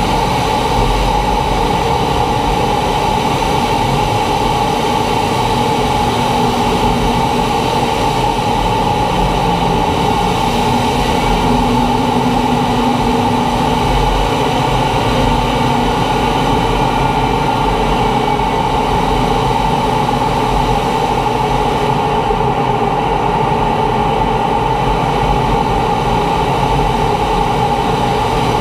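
T-45 Goshawk jet trainer in low-level flight: the steady drone of its Rolls-Royce Adour turbofan and rushing air, with a constant mid-pitched hum running through it.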